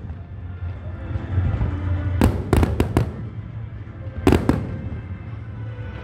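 Fireworks bursting overhead: a quick cluster of sharp bangs about two seconds in, then another pair a little after four seconds, over a steady low rumble.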